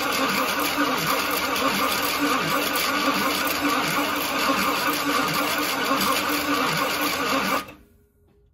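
1966 Cadillac Fleetwood's 429 V8 engine running steadily, then switched off, cutting out suddenly near the end.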